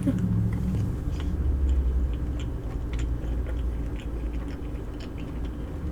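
Close-miked chewing of food, a scattered run of small mouth clicks over a low steady hum.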